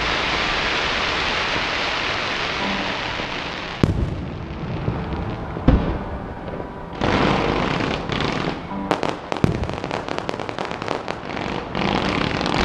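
Fireworks display: a dense hissing crackle, then two sharp booms about four and six seconds in, then rapid crackling and popping of many shells for the rest.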